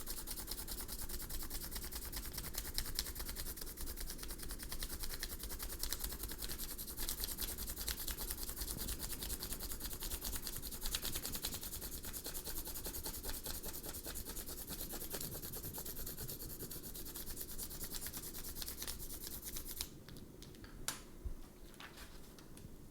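Coloured pencil scratching back and forth over paper laid on a mango leaf, in rapid steady strokes, making a leaf rubbing. The colouring stops about three seconds before the end, and a couple of light taps follow.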